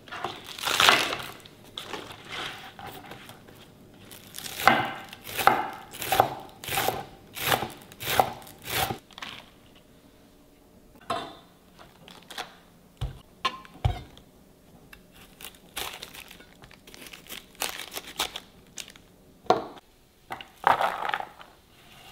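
Hand food preparation: a run of about eight short scraping strokes, then scattered clicks and two low knocks.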